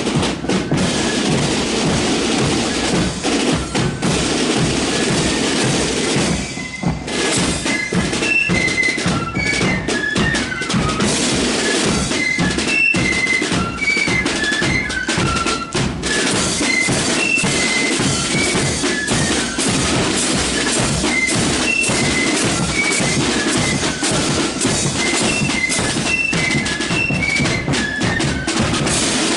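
Marching flute band. Snare and bass drums play alone for the first six seconds or so, then after a brief break the flutes come in with a melody over the drumming.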